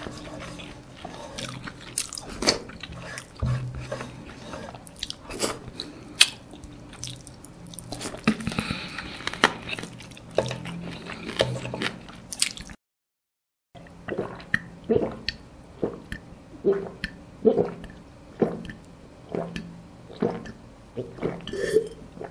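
Close-up eating sounds of a person chewing chicken and rice picked off the bone by hand: wet lip smacks, small clicks and chewing, in a steady rhythm of a little under one chew a second in the second half. The sound drops out completely for about a second midway.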